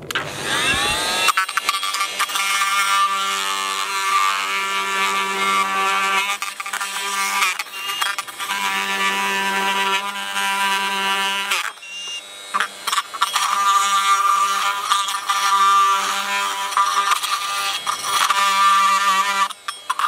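Oscillating multi-tool rising in pitch as it starts up, then running steadily as its blade trims plastic from inside the alarm siren's housing. It drops out briefly about twelve seconds in and picks up again.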